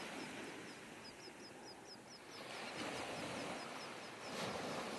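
Surf washing over sand, with a small bird chirping rapidly and high, about five chirps a second, through the first half.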